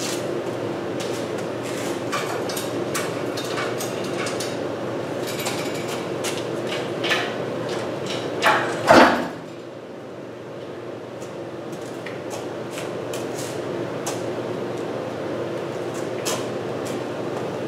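Scattered metallic clanks and knocks of hand work on parts in a car's engine bay, loudest in two knocks about eight and a half and nine seconds in, over a steady hum.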